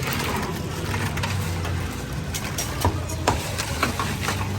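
Cleaver chopping roast pork on a chopping block: a run of sharp knocks in the second half, over a steady low hum of traffic.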